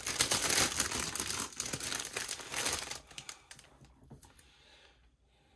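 Clear plastic packaging crinkling as a wrapped bundle of bagged diamond-painting drills is pushed across the canvas and set down. The rustling dies away about three seconds in, leaving a few faint taps.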